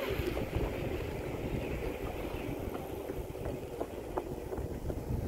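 Low, uneven rumble of wind and road noise on the microphone of a camera moving along a street, with a few faint light ticks.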